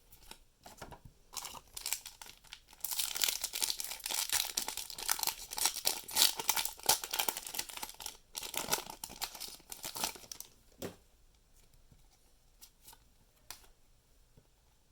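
Foil wrapper of a Pokémon Cosmic Eclipse booster pack being torn open and crinkled: a few light rustles first, then several seconds of dense crackling tearing, fading to a few faint ticks near the end.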